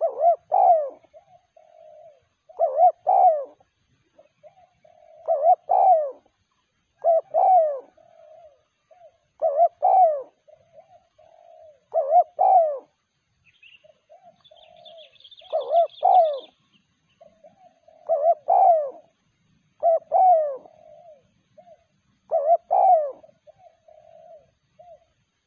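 Spotted dove cooing: a loud, low phrase repeated about every two to three seconds, with softer coos between the phrases.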